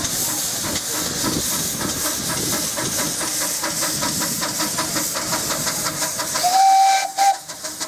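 Small narrow-gauge steam locomotive moving off, steam hissing loudly from its open cylinder drain cocks with a regular beat, and a short whistle blast about six and a half seconds in.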